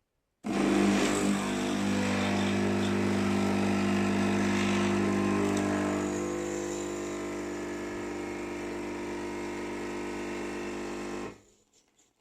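Espresso machine running with a loud, steady buzzing hum, a little quieter after about six seconds, cutting off abruptly near the end. It is the terrible noise that shows the machine needs maintenance.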